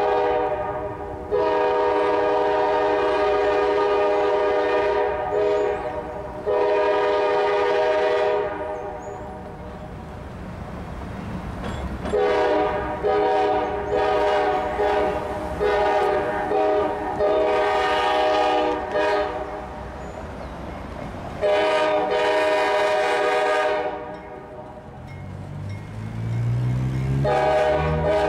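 Norfolk Southern wide-cab diesel freight locomotive sounding its multi-tone air horn in a series of long blasts, the longest lasting several seconds. A low diesel rumble is heard between the blasts as the train runs down the street.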